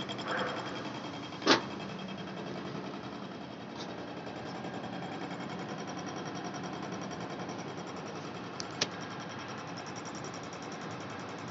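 Gantry milling machine running steadily with a fast, even mechanical chatter. A sharp click sounds about one and a half seconds in, and a smaller double click comes near the end.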